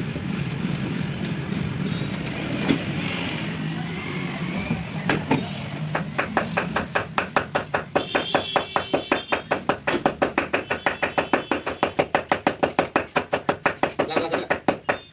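Small hammer tapping rapidly on a patch on a tractor-trailer inner tube, about four to five taps a second, pressing the puncture patch down to bond it. The taps start about five seconds in, after a stretch of steady low hum.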